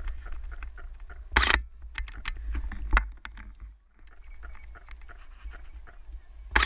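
Footfalls and jostling of a person running with a body-mounted action camera, with rumbling wind noise on the microphone. A louder burst of noise about one and a half seconds in, and a sharp click near three seconds.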